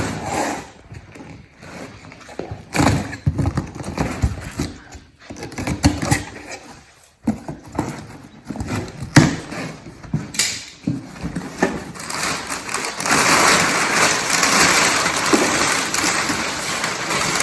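Cardboard boxes of car parts being opened and handled: irregular knocks, taps and handling noises, then from about thirteen seconds a continuous rustle and crinkle of packing material being pulled out.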